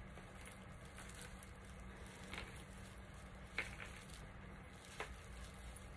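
Faint rustling of hands tying a twine knot around a bundle of fabric strips and raffia, with a few soft ticks spread through it.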